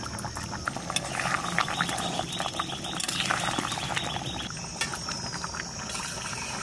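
Metal ladle stirring and scraping through a simmering curry in a karai, with small clicks and knocks against the pan. A steady high whine runs throughout, and a rapid rattling animal call sounds for about three seconds in the middle.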